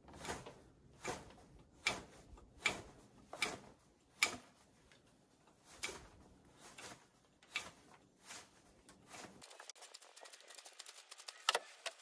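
Knife blade whittling a stick of wood by hand: a steady series of sharp shaving strokes, a little under a second apart. Near the end they give way to quicker, lighter scraping.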